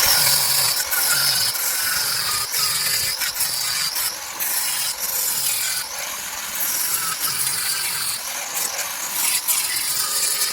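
Angle grinder with a flap disc grinding down fresh welds on a steel body repair patch: a loud, continuous rasping with a high whine that wavers as the disc is worked over the metal.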